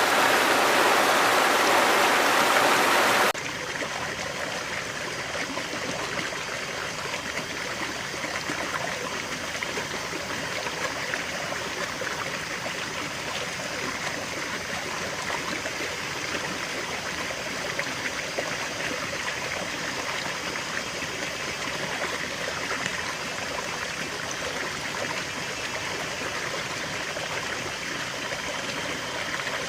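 Running water in a stream: a loud, even rush that cuts off suddenly about three seconds in, giving way to a quieter, steadier stream flow for the rest.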